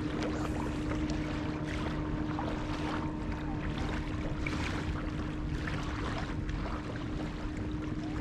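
Small waves lapping at the shoreline in soft, irregular splashes, over a steady low hum of a boat engine running out on the water.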